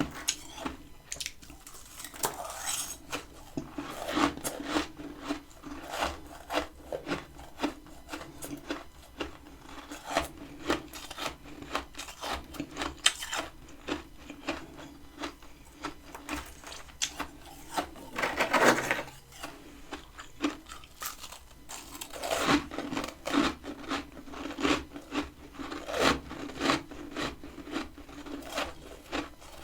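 Crunching and chewing of freezer frost made with a humidifier, close to the microphone. Irregular crisp crunches mix with scraping, and one louder, longer crunch comes a little past halfway.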